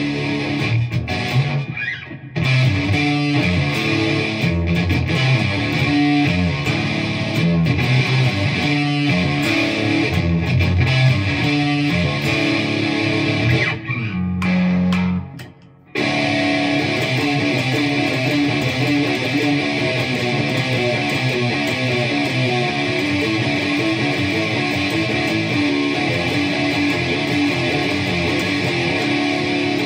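Epiphone Prophecy Les Paul electric guitar with active Fishman pickups playing metal riffs. The first half is choppy and stop-start, with short breaks about two seconds in and again near the middle, where a low note is held briefly. From about halfway the playing becomes a continuous run of fast-picked notes.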